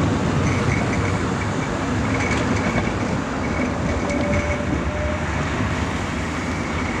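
LVS-86K-M articulated tram rolling along the track, its wheels rumbling and clicking on the rails and slowly fading as it pulls away. A faint thin whine comes in for a couple of seconds around the middle.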